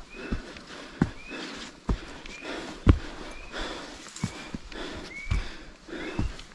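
A hiker's footsteps on a mountain trail, about one thudding step a second, with a short high squeak between steps.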